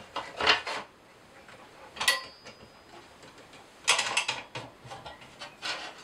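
Hand handling of a scroll saw blade holder and wooden workpiece as a sanding blade is hooked in. A few brief scrapes, a sharp metallic click with a short ring about two seconds in, then a cluster of small clicks and rattles around four seconds in and again near the end. The saw is not running.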